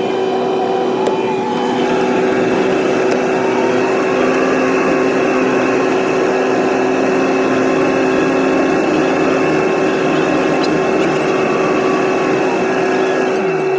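Vehicle engine running at a steady speed with a constant whine over a dense mechanical roar; the pitch falls near the end as it slows.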